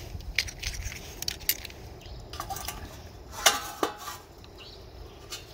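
Metal tongs clinking and scraping on a metal steamer tray as sheets of laver are laid in and moved about to roast. Scattered light clicks, with one sharper clink about three and a half seconds in.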